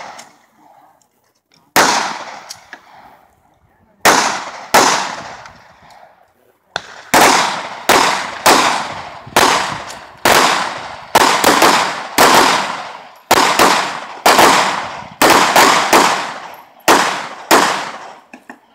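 Handgun shots fired on a range, each with an echoing tail: three spaced shots in the first five seconds, then a steady string of about twenty shots at roughly two a second that stops just before the end.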